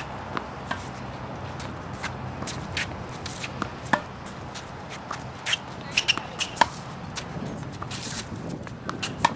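Tennis ball struck by a racket on a hard court: sharp pops of ball on strings a few seconds apart, the clearest about four seconds in and near the end. In between come fainter ball bounces and taps, with sneakers shuffling on the court.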